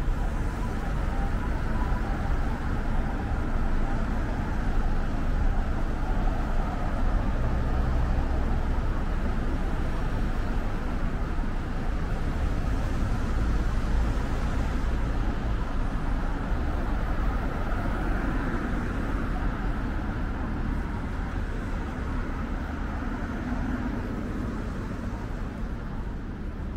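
Street traffic: cars and other road vehicles running past in a steady low rumble that swells as vehicles pass and eases a little near the end.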